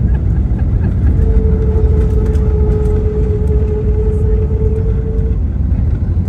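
Airbus A321 cabin noise while the jet rolls on the ground after landing: a loud, steady low rumble from the engines and the wheels on the pavement. A steady mid-pitched whine comes in about a second in and stops about five seconds in.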